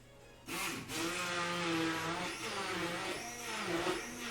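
Electric blender motor switching on about half a second in and running, its whine dipping and recovering in pitch a few times as it purées cooked beetroot and cream into a sauce.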